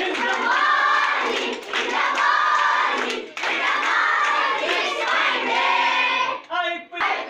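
Group of schoolgirls singing together in unison, in short repeated phrases with brief breaks between them. Near the end one voice calls out alone.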